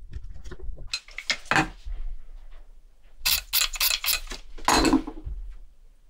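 Small metal tools and watch parts handled on a workbench: light clicks and clinks with several short scraping, rasping strokes.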